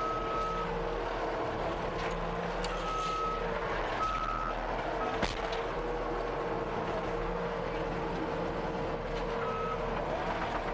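Skid steer engine running, heard from inside the cab, with its reverse alarm giving short beeps on and off as the machine backs up. A single sharp knock about five seconds in.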